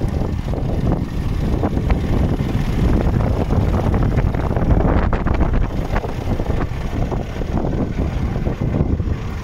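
Wind buffeting the phone's microphone: an irregular low rumble with gusts.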